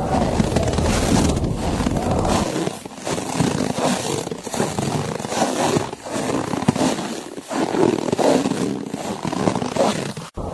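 Footsteps crunching in snow, each crunch separated by a short break about every one and a half seconds. A low wind rumble fills the first couple of seconds and then fades, and the sound cuts out abruptly for an instant near the end.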